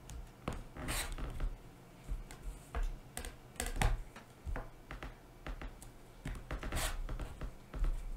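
A rotary cutter slicing through layers of cotton fabric along an acrylic ruler on a cutting mat, trimming excess corners off sewn quilt pieces. There are several short rasping cuts at irregular intervals, mixed with light taps and thumps as the ruler and fabric pieces are moved and set down.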